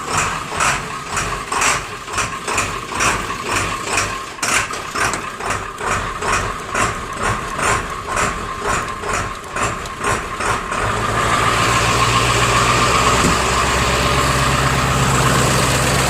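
Diesel truck engine on a cold start with new glow plugs, after one glow plug cycle: the starter cranks it in an even, slow rhythm of about two pulses a second. About eleven seconds in, it catches and settles into a steady idle.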